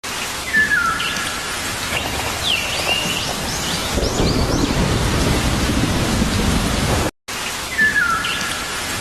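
Steady rain with birds chirping several times, and a low rumble of thunder swelling for a few seconds in the middle. The sound cuts out for a moment near the end, and the same rain-and-birdsong recording starts over.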